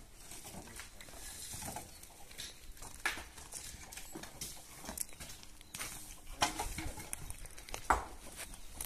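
Scattered footsteps and light knocks on stony, dry ground, with dry branches rustling and knocking as they are handled.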